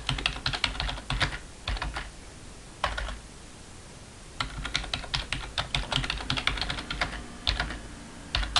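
Typing on a computer keyboard: quick runs of keystrokes broken by short pauses, with a longer unbroken run in the second half.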